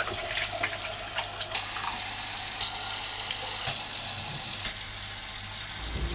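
Bathroom tap running into a ceramic sink, the water splashing over hands being washed and then running into a plastic bottle held under it. There are a few light knocks in the first second and a half.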